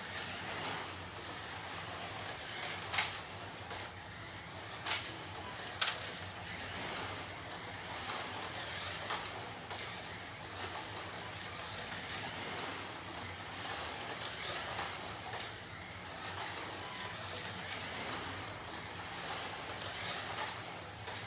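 Scalextric Ginetta G60-LT-P1 1:32 slot car lapping a plastic track: a steady motor whine and the hiss of its pickup braids and tyres on the track, swelling and fading as the car comes nearer and goes away. Three sharp clicks come about three, five and six seconds in.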